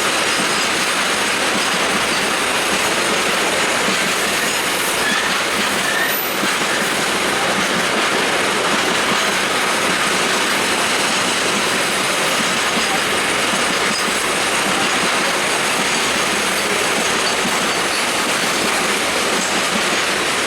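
Indian Railways train running on the track: a steady, unbroken rush of wheel and rail noise with no horn.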